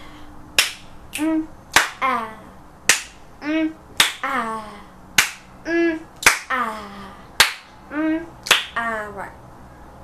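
A boy making short wordless vocal sounds, some held and some sliding down in pitch, between sharp snaps or clicks that come steadily about once a second, the snaps being the loudest sounds.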